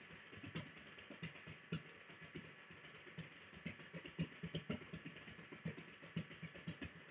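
Feet stamping rapidly in place on a floor: a quick, uneven run of light thumps, several a second.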